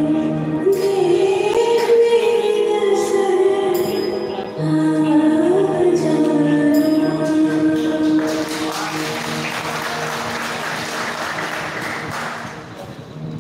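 A song with female singing, its melody wavering over a steady accompaniment. About eight seconds in, audience applause rises over the music and carries on for several seconds before fading near the end.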